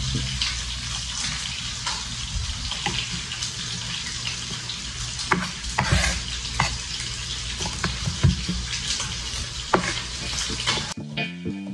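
Chef's knife knocking on a wooden cutting board while slicing a red bell pepper, with a few sharp strokes in the second half, over a steady hiss.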